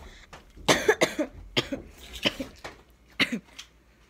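A person coughing repeatedly: a cluster of coughs about a second in, then a few more spaced through the next two seconds.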